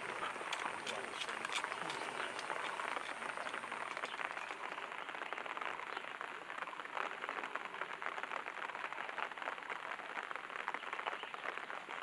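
Steady, dense crackling of a fire of wood chips and sawdust burning in a steel tray, with a few sharper clicks in the first couple of seconds.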